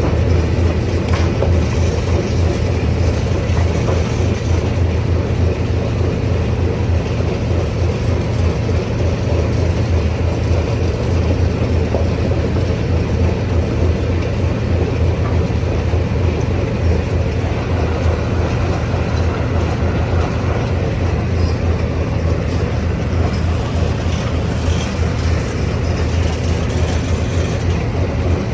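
Stone crusher running steadily: a deep, constant low hum under a continuous coarse mechanical noise.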